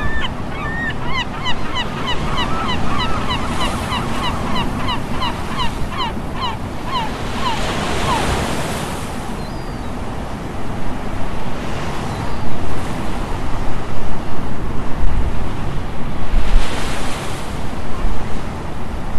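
Ocean surf washing and breaking, in louder surges in the second half, with wind on the microphone. Over the first several seconds a bird calls in a quick series of short, high notes.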